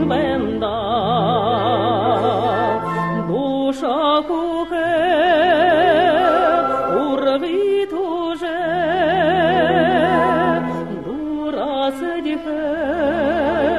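A song: a solo singer holds long notes with a wide vibrato over an accompaniment of steady, held bass notes.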